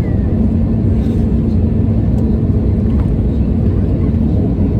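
Airbus A320neo cabin noise, heard from inside: the steady, loud rumble of airflow and its CFM LEAP-1A engines, with a steady hum and a few faint rattles.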